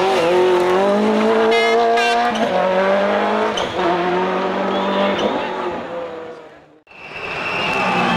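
A turbocharged World Rally Car engine accelerating hard, its pitch climbing and dropping back at quick gear changes. The sound then dies away almost to nothing about seven seconds in, and another engine note rises straight after.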